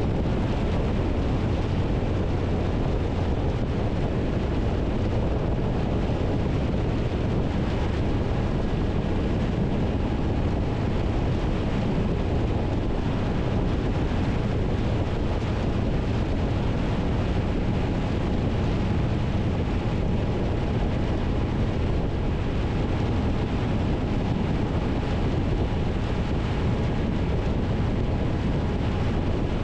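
Triumph Tiger 1200 motorcycle cruising steadily at highway speed: a constant rush of wind on the microphone over the engine and tyre noise, unchanging throughout.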